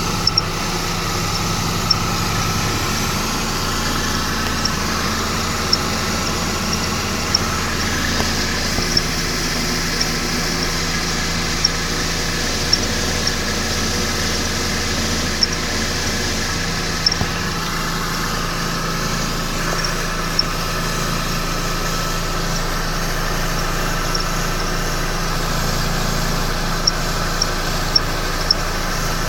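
Mercedes-Benz E350's M272 V6 idling, with a short, high-pitched chirp from the serpentine belt area about once a second; the chirps stop for several seconds past the middle and return near the end. The owner suspects the belt tensioner, which moves in sync with the chirp.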